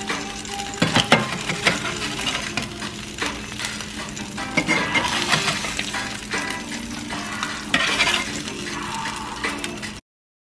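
Crab cakes sizzling in a frying pan while a metal spatula scrapes and clinks against the pan, lifting them out. The sound cuts off suddenly near the end.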